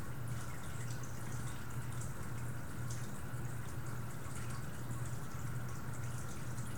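Steady low hum with a faint hiss underneath: constant background room or equipment noise, with no distinct event.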